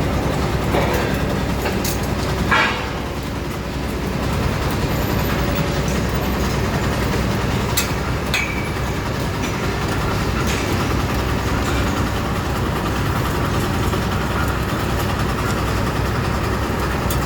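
A steady, loud rumble of a heavy engine or machine, with a few short metallic clanks or knocks, one near the start and a couple around the middle.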